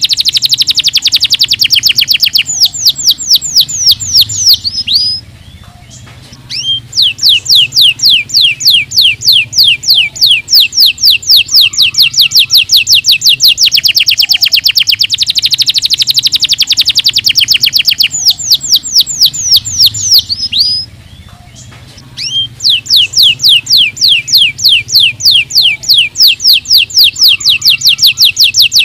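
Domestic canary singing long, loud trills of fast repeated down-sweeping notes, with two brief pauses between phrases.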